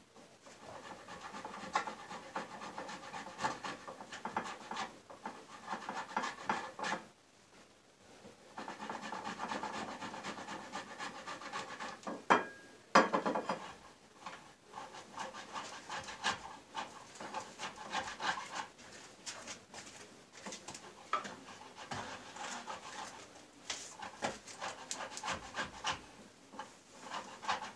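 Boiled potato being grated on a metal box grater: repeated rasping strokes of the soft potato against the grater's blades, with a short pause about a quarter of the way in and a couple of sharper knocks near the middle.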